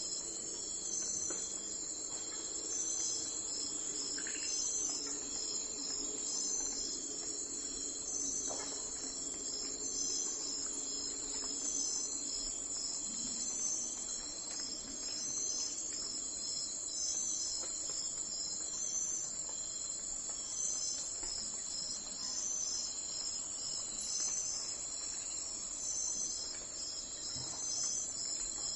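Insects chirring steadily, a high shrill chorus with a pulse repeating about once a second. A faint low hum underneath fades out about halfway through.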